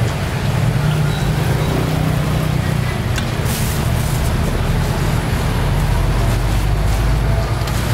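Road traffic: a steady low rumble of vehicle engines running, with a brief hiss a little before halfway.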